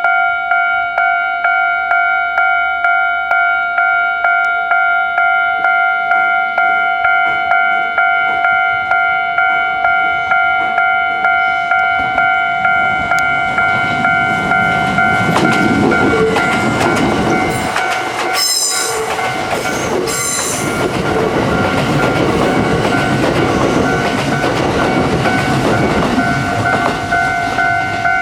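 Japanese level-crossing warning bell ringing in an even repeating pulse, about one and a half strikes a second. From about halfway a Kintetsu limited express, 12600 series and 22000 series electric cars, runs past over the bell, its wheels clattering on the rail joints, with two short shrill sounds in the middle of the pass.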